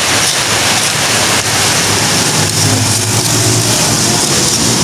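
Ground spice paste sizzling as it fries in hot melted margarine in a wok, a steady loud hiss. A low hum comes in about two seconds in and fades near the end.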